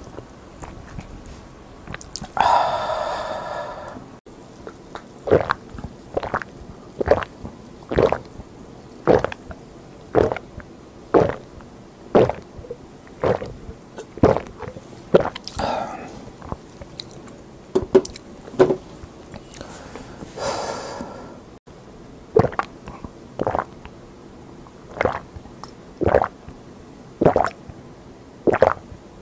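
Close-miked gulping as a person downs a glass of drink in one go: loud, evenly spaced swallows, a little more than one a second. A few longer breathy sounds come between drinks.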